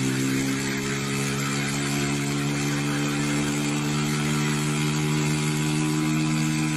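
Motorboat engine running steadily under load, its pitch creeping slightly upward as it tows a parasail.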